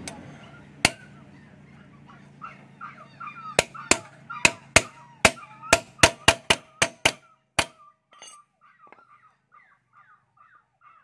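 Sharp metal-on-metal taps on a steel flat bar driving a new 6204 ball bearing into a Bajaj RE three-wheeler's front hub: one strike about a second in, then a quick run of about a dozen taps, coming faster, from about three and a half seconds to seven and a half. A bird calls over and over in the background, heard most plainly near the end.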